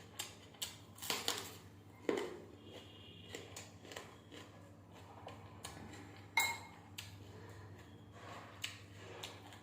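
Cutlery clinking and scraping against a plate of biryani during eating, a dozen or so sharp clicks scattered through, the loudest about six and a half seconds in, over a low steady hum.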